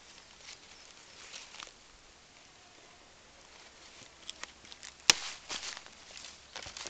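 Footsteps and rustling in dry leaf litter and twigs, faint at first and busier in the second half, with one sharp crack about five seconds in.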